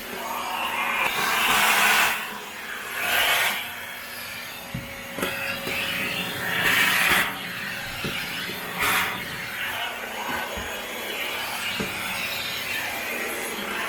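Paper-bag canister vacuum cleaner running with its narrow crevice nozzle, rubbing and scraping along the floor and carpet edge. The suction hiss swells into several louder rushes as the nozzle is worked into corners, over a steady motor hum, with a few light knocks of the nozzle.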